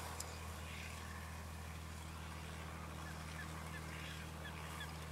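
The fishing boat's inboard engine running with a steady low hum. From about three seconds in, a bird calls over it in a quick series of short notes.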